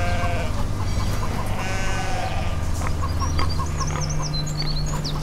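Farm livestock bleating twice, the second call about two seconds in, then high curling bird chirps near the end, over a steady low hum.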